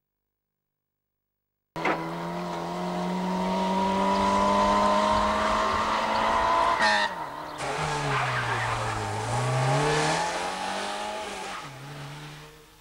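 Lada rally car engine running hard at high revs. The sound cuts in abruptly about two seconds in and holds a high, slowly rising pitch. After a sudden break about seven seconds in, the pitch dips low and climbs again, then fades out near the end.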